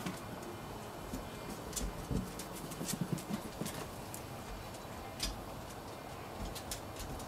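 Miniature labradoodle puppies scampering and tumbling on patio paving slabs: scattered light clicks and scuffs of paws over a steady hiss, with a cluster of soft thumps about two to four seconds in.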